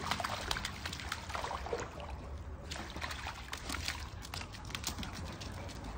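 Shallow water trickling over a pool's stepped edge, with small irregular splashes as a puppy wades through it.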